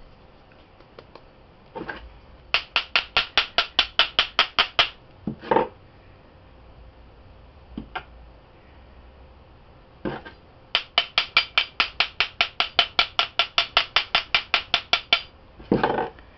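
Quick metal tapping on a stainless steel bath bomb mold, about five taps a second, in a short run and then a longer run in the second half, to loosen the packed bath fizzy from the mold. A few single knocks and scrapes of the mold fall between the runs.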